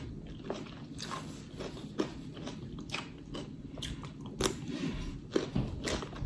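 Close-miked eating of snow crab legs: chewing and sucking the meat out of a leg shell, with scattered sharp wet clicks and smacks at irregular intervals.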